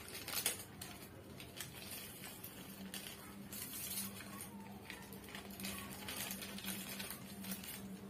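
Small clear plastic packet crinkling and rustling in the fingers as it is worked open, in quiet, irregular crackles.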